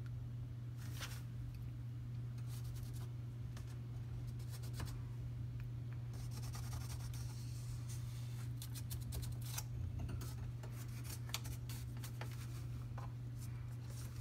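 Scratching, scraping and rustling on a wire closet shelf holding cardboard and plastic, during play with a Himalayan cat: irregular runs of quick scratches and clicks, thickest in the middle and later part. A steady low hum lies underneath.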